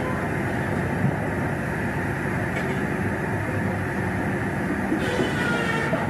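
Sawmill roller conveyor running steadily: the clatter of steel live rollers carrying a squared log, with a single knock about a second in.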